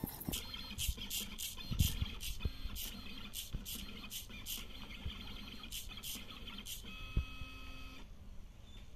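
DIY XY pen plotter's motors driving the pen carriage as it draws, in a quick series of short buzzing strokes about two a second. Near the end comes a steady whine for about a second during a longer move.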